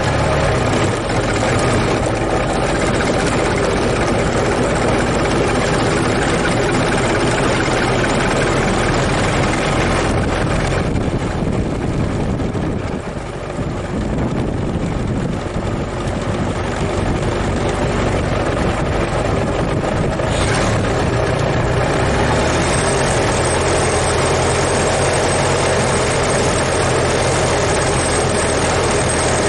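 Ford Model T's four-cylinder engine running steadily. It goes a little quieter and duller through the middle stretch, then picks back up.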